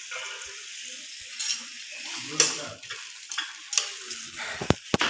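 Tomatoes and green chillies frying in a pan, a steady sizzle as they are stirred, with a few sharp metal clinks of utensil against pan. Two louder ringing metal clinks come close together near the end.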